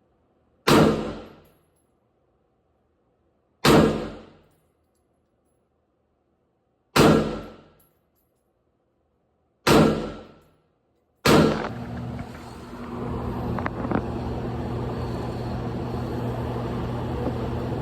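Five single rifle shots from a Galil ACE 5.56 carbine, each sharp with a short ringing decay, spaced about three seconds apart and the last two closer together. After the fifth shot a steady background hum comes in.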